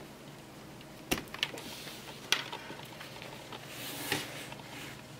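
Handling noise as a 120 mm plastic PC case fan is pulled out: about four sharp plastic clicks and knocks, with a brief rustle near the end.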